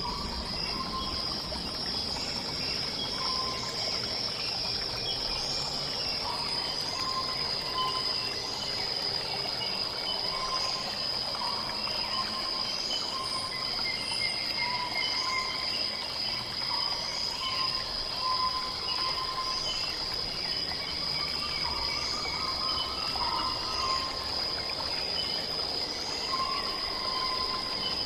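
Night jungle ambience: a waterfall rushing steadily under a continuous high insect trill. Short rising chirps come about once a second, with scattered brief calls lower down.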